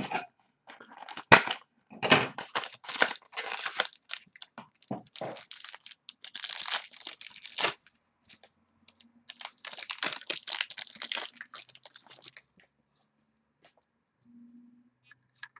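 Trading-card packaging being handled, crinkling and tearing in a quick run of rustles. The rustling stops about eight seconds in, comes back about a second later for three more seconds, then dies away.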